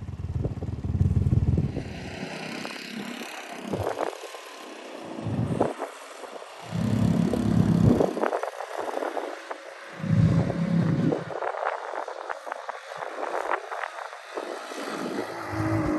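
A 200cc off-road go-kart's engine running on a trail, picking up in bursts with the throttle, while the kart's body and frame rattle and clatter over rough ground.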